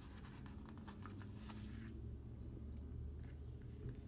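Faint crinkling and small clicks of a paper sticker being peeled from a sticker sheet, then a soft tap or two as it is pressed onto a planner page, under a low steady hum.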